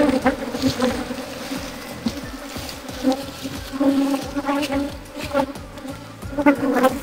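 A mass of honey bees buzzing around an open hive from a very strong colony: a steady hum that swells and fades.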